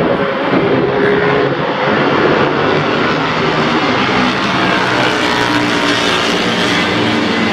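Several vintage racing motorcycles, pre-1972 machines, running on the circuit at once. Their engine notes overlap at different pitches, loud and steady.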